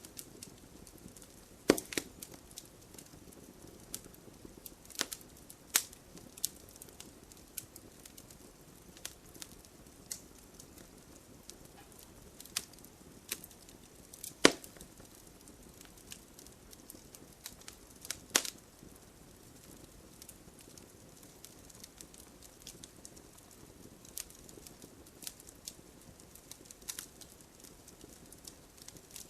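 Wood fire burning in a fireplace: a faint steady hiss of flames with irregular sharp crackles and pops of the burning logs, a few louder pops standing out, near 2, 14 and 18 seconds in.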